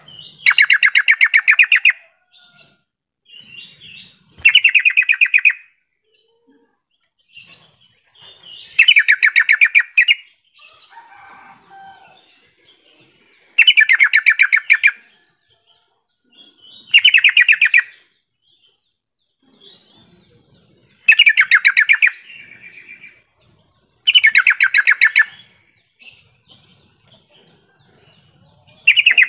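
Yellow-vented bulbul singing: short bursts of rapid repeated notes, each about a second long, coming again every three to four seconds.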